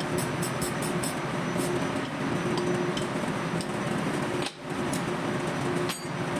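Steady machinery drone with a faint held hum, overlaid by light metallic clicks and taps; the level drops briefly twice near the end.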